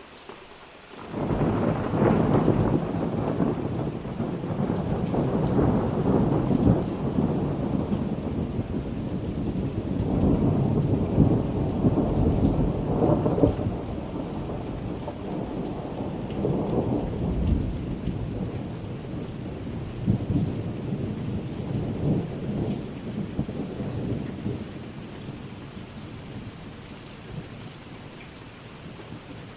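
Thunder rumbling in long rolls over steady heavy rain. The thunder starts suddenly about a second in, is loudest in the first half, and dies away near the end, leaving the rain.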